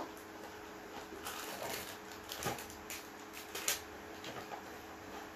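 Soft rustling and scattered light clicks of hands handling the plastic and cardboard packaging of a Blokees Transformers kit, over a faint steady hum.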